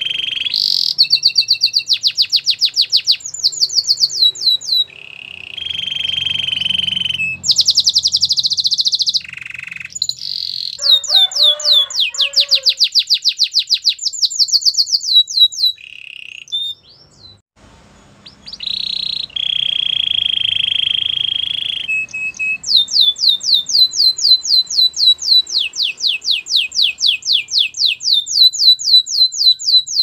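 Domestic canary singing: fast trills of repeated falling notes alternating with long, steady rolling tones, with a brief pause a little past the middle.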